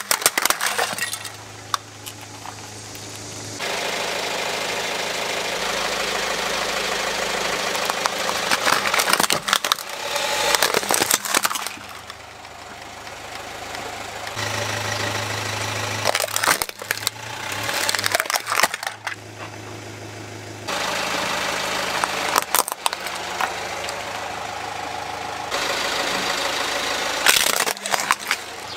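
Hard plastic toys cracking and snapping under a car tyre in four separate bursts of crunching, with the car's engine idling in between. The background hum jumps abruptly several times where clips are cut together.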